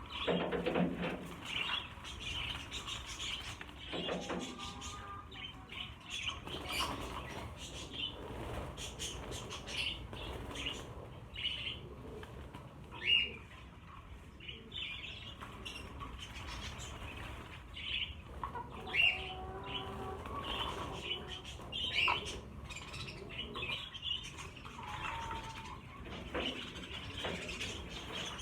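A flock of budgerigars chattering and chirping, with bursts of wing flapping as birds flutter about the cage. A few louder calls stand out.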